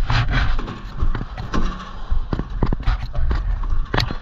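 Footsteps on wet pavement, an irregular series of steps, with wind buffeting the microphone.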